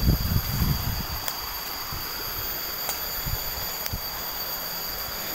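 A shallow stream running steadily, with rustling and brushing of undergrowth and footsteps on leaf litter, heaviest in the first second.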